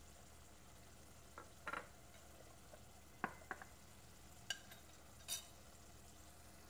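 Onion and tomato sauce simmering faintly in a pot on a gas burner, with a handful of short pops and spatters spread through.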